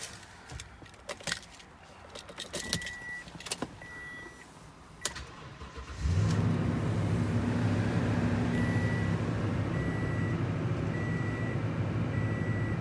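Keys rattling and clicking, with a dashboard warning chime beeping at intervals. About halfway through, the 2016 Toyota Tundra's 5.7-litre V8 starts abruptly and settles into a steady idle while the chime keeps beeping about once a second.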